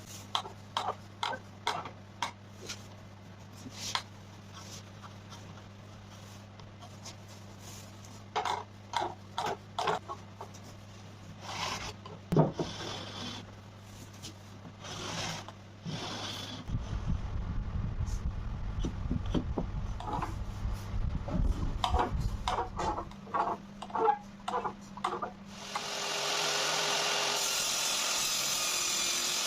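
Wooden parts being handled in a workshop: many short knocks and clicks, with rubbing and sliding of wood on wood, over a low steady hum. About 26 seconds in, a steady rushing machine noise starts and keeps going.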